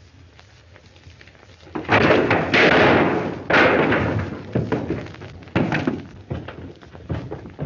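A gunfight's revolver shots: four loud sudden bangs, each with a short echoing tail, the first about two seconds in, then two close together, and the last near six seconds. The dull tone and cut-off top come from an old film soundtrack.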